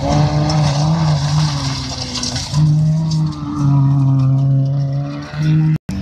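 Fiat Panda autocross car engine running hard on a dirt track. The note holds steady at a few pitches, stepping down and back up between them, with a brief gap in the sound near the end.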